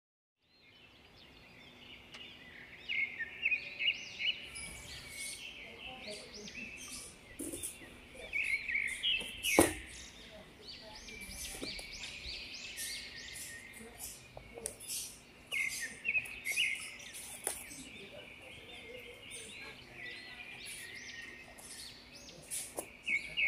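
Small birds chirping in quick repeated short calls, fading in over the first couple of seconds. A single sharp knock sounds near the middle and is the loudest moment.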